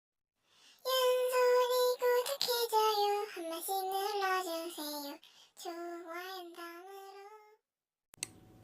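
A high solo voice singing unaccompanied: a held note, then a phrase stepping downward, with short breaks between lines. A sharp click comes near the end.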